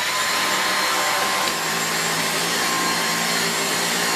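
Dyson V6 Absolute cordless stick vacuum with its direct-drive floorhead fitted, switching on abruptly and running steadily with a high whine in normal power mode.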